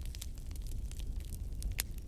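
Wood fire in a fireplace crackling, with many small sharp pops over a low steady rumble; the loudest pop comes near the end.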